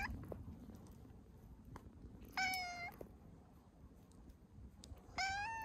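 Brown tabby cat meowing: two meows about three seconds apart, each about half a second long, the second rising slightly in pitch. The end of a third meow falls at the very start.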